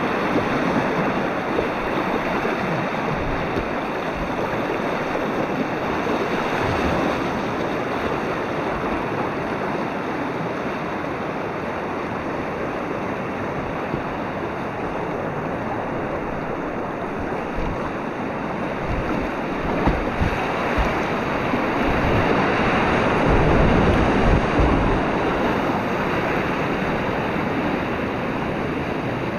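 Whitewater river rapids rushing, heard close up from a kayak running them: a steady, dense rush of water that swells louder about three-quarters of the way through.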